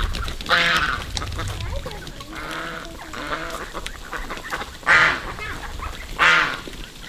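Domestic waterfowl calling: a few scattered harsh, nasal calls, the two loudest about five and six seconds in.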